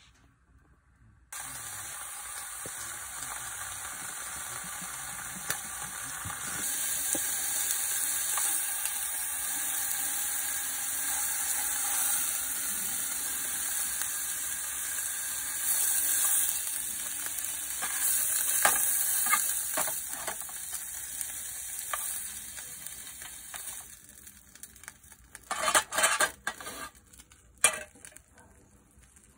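Food sizzling in a hot frying pan. The sizzle starts suddenly just over a second in, runs steadily with faint crackles, and drops away about 24 seconds in. A few loud sharp clinks follow near the end.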